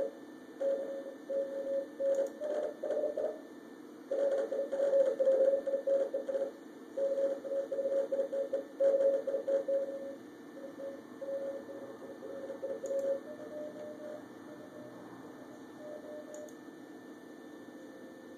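Morse code (CW) signal received on a SoftRock 40-meter software-defined radio kit: a steady-pitch tone keyed on and off in dots and dashes over band hiss. After about ten seconds the keying grows weaker, a fainter signal comes in briefly, and near the end only the hiss is left.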